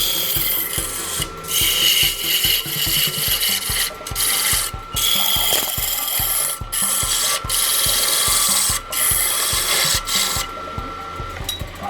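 Wood being worked on a spinning lathe: a tool scraping and rasping against the turning blank in repeated passes of a second or two, with short breaks between them. A faint steady whine runs under the passes and stops shortly before the end.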